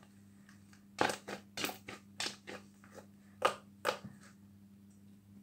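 Blue butter slime, glue slime with soft clay mixed in, being squeezed and kneaded by hand, giving a run of about a dozen sharp, irregular wet clicks and pops. They start about a second in and die away after about three seconds.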